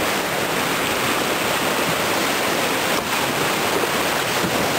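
Whitewater river rapids rushing steadily, churning white water around the raft.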